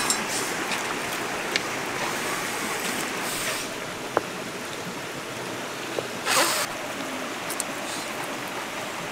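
River water running steadily over stones, with a few light clicks and knocks and a brief scraping rustle about six seconds in as stones and sticks are handled around a small fire.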